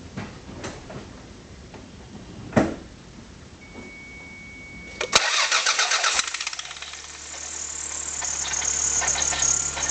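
1991 Toyota MR2 Turbo's 3S-GTE engine cranked by the starter about five seconds in, catching and settling into a cold idle. Over the idle comes a high metallic grinding, scraping noise, which the owner suspects is the CT26 turbo's compressor wheel scraping its housing because of play in the shaft.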